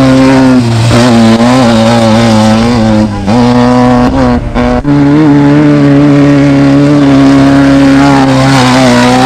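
Off-road race vehicle's engine running loud at high, near-steady revs. The pitch steps down and back up a few times, and the sound briefly drops off about three seconds in and again about four and a half seconds in.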